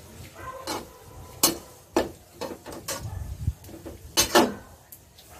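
Metal spatula scraping and knocking against a metal wok while stirring chopped pork and liver, a run of irregular clanks about every half second.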